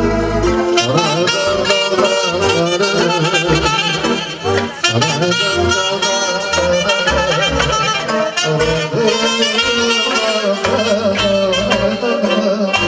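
Saxophone playing a quick, ornamented melody through a PA system, over an electronic keyboard accompaniment with a bass line.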